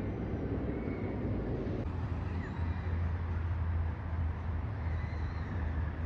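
Steady low engine drone from construction machinery, with a broader rumble that eases about two seconds in. A few faint bird chirps sound above it.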